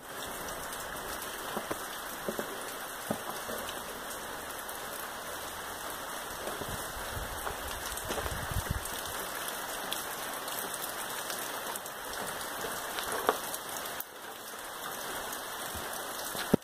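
Steady rain falling and pattering on the surfaces around, with a few sharper drop taps standing out now and then.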